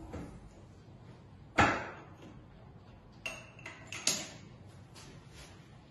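A sharp knock, then two lighter metallic clanks with a brief ring, as a steel bar clamp is taken off a wooden bending form.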